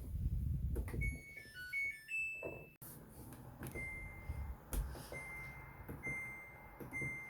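Samsung ActiveWash 14 kg washing machine's control-panel tones: a short melody of stepping electronic notes about a second in, then four single beeps at one pitch, each just after a click, spaced about a second apart. Low thumps sound underneath.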